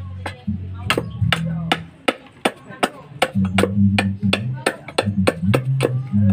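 Machete blade chopping into a block of wood, a string of sharp wooden chops about three a second, over background music with a low bassline.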